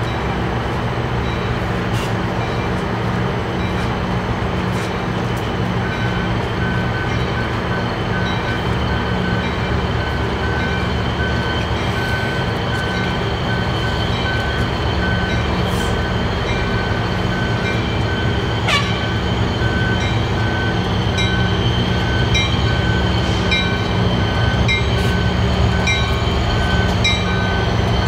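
EMD GP39H-2 diesel locomotive running at low speed as it rolls into a station. Its bell starts ringing about six seconds in and rings steadily on at an even beat. A brief squeal falling in pitch comes about two-thirds of the way through.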